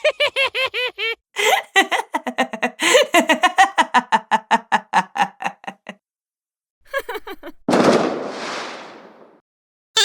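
Laugh sound effects in quick succession: a rapid run of "ha-ha" laughter, then a longer stretch of fast, pulsing laughter. Near the end comes a short noisy burst that fades over about a second and a half.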